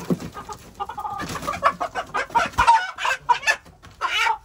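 Chickens clucking in a rapid string of short, loud calls, starting about a second in, while a hen is grabbed and lifted by hand to have her wings clipped.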